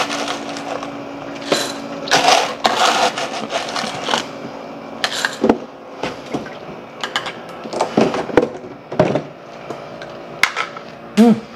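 Soft nugget ice being scooped out of a HiCOZY countertop ice maker's bin and dropped into a glass: irregular crunching, rattling clatters of ice, with a faint steady hum during the first half.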